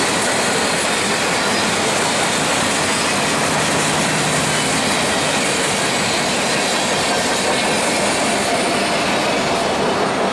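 Cars of a mixed freight train rolling past close by: a steady rush of steel wheels on rail.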